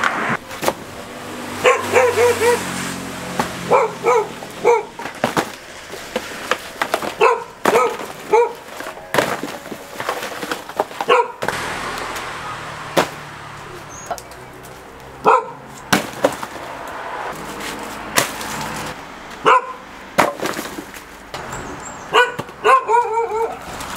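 A dog barking repeatedly in short clusters of barks, with sharp knocks in between.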